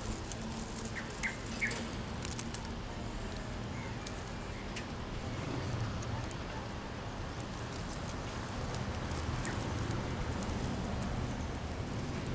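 Outdoor background: a steady low rumble with scattered faint clicks and ticks, and three short high chirps in quick succession about a second in.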